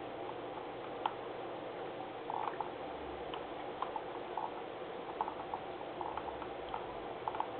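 Computer mouse scroll wheel clicking in short runs of small ticks as a document is scrolled, over a steady background hum.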